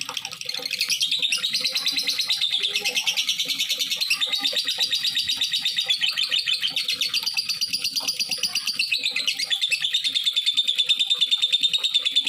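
Lovebird chattering in a long, unbroken run of rapid high chirps.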